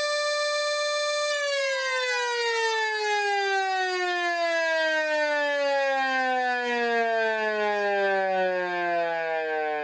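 Two 6-volt mechanical sirens, a MARS SL60 siren light and an early Sireno junior siren, hold a steady high wail. About a second in, the power is cut and they wind down, one dropping in pitch faster than the other. The remaining siren's pitch falls steadily to a low tone near the end.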